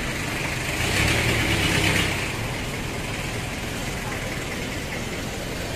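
A car engine running close by, swelling louder for about a second, then settling back to a steady hum mixed with outdoor traffic noise.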